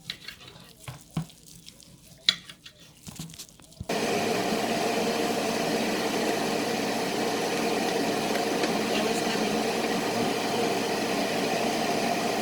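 A few light knife clicks and taps while chicken is cut, then about four seconds in a loud, steady rushing noise with a faint hum in it starts suddenly and carries on.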